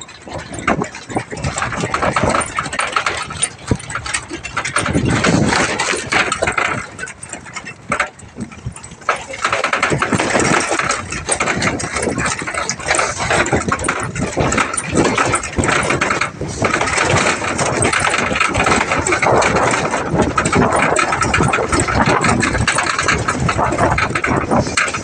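Truck engine running under way, with constant rattling and clatter from the open cargo bed and its load as it bounces along a rough downhill road; it grows louder and busier from about nine seconds in.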